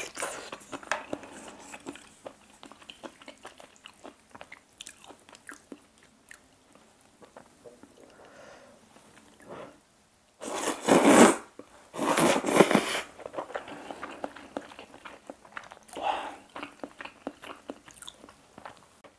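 Chewing of seafood aglio e olio with many small wet mouth clicks, then, a little past the middle, two loud slurps of thin noodles.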